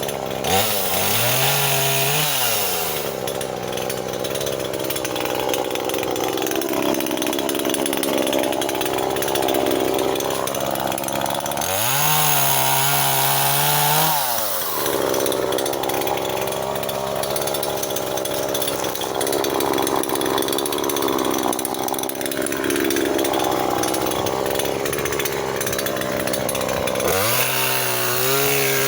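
Chainsaw cutting firewood. The engine revs up to a high, steady pitch three times: near the start, about halfway through and near the end. In between it runs lower and rougher under load as the chain cuts through the wood.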